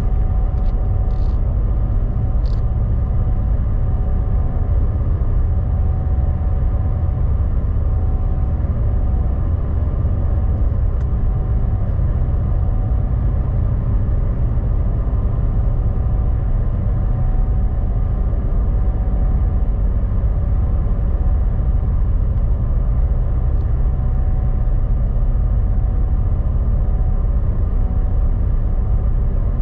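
Steady low rumble of a running engine in motion, unchanging throughout, with a faint steady hum above it.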